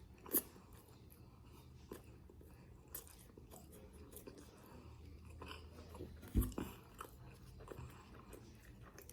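A person eating pizza close to the microphone: quiet chewing and biting with small crunchy clicks. A short knock about half a second in and a heavier thump about six and a half seconds in stand out above the chewing.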